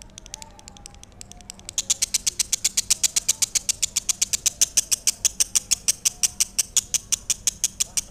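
Lovebird ngekek: a long, fast, even string of sharp, high chirps, about eight a second, starting faint and turning loud about two seconds in.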